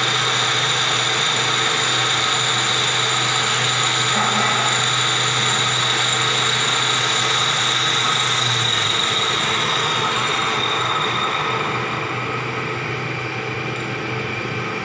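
Ward 3DB capstan lathe running, its headstock gearbox and spindle giving a steady mechanical whine. About two-thirds through, the low hum stops and the whine fades as the sound drops slightly.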